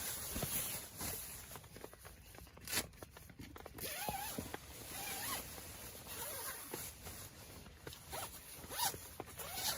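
A zipper being pulled in short rasping strokes, over a steady hiss of rain.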